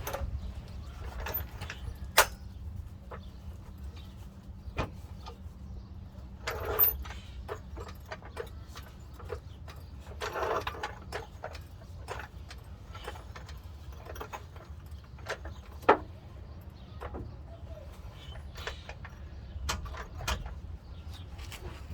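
Hand tools clinking and knocking against the metal of a pickup's transmission crossmember and mount, as scattered clicks with three sharp knocks standing out, over a low steady rumble.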